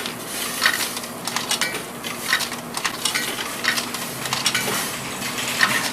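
Supermarket background noise: a steady hiss with scattered clicks and clatter and a faint steady hum.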